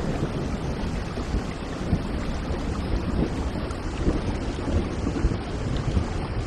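Steady heavy rain with a continuous low rumble of thunder underneath.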